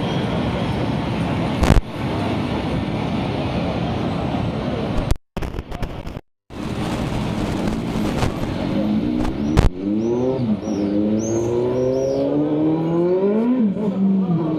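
Steady road noise, then a motor vehicle engine accelerating in the second half: its pitch climbs, drops back at a gear change and climbs again.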